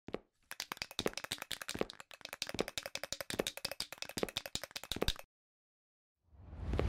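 Animation sound effect of rapid clicking and clattering, about ten clicks a second with heavier beats under them, stopping abruptly about five seconds in. A whoosh swells up near the end.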